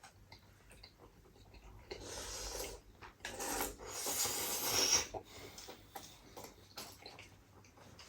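Eating noises close to the microphone: two noisy stretches, the first about a second long and the second about two seconds long, with small wet clicks between them.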